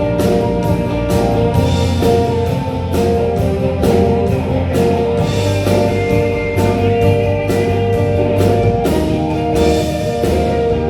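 Live country band playing an instrumental break with no singing: guitar over bass and a steady drum beat.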